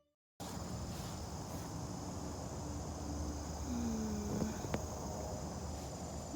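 Woodland ambience with insects trilling steadily in a high pitch over a low background rumble, starting about half a second in; a brief low gliding tone and a small click come about four seconds in.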